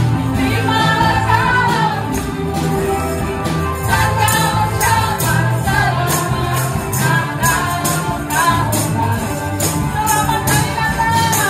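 Live gospel song with a drum-and-guitar band and group singing, with ribbon tambourines jingling and struck on the beat.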